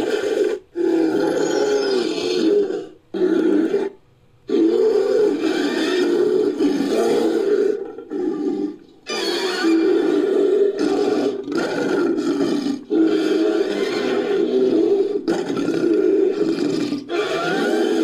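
Sound effects for an invented bear-like monster: a run of deep, wavering roars and growls, one after another with short breaks. They are built from bear recordings (grizzly, black bear, cave bear, Arctodus) mixed with other creature sounds.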